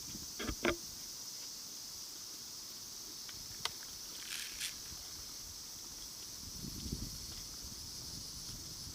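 Steady high-pitched insect chorus, with a few short knocks and clicks and brief low rustles.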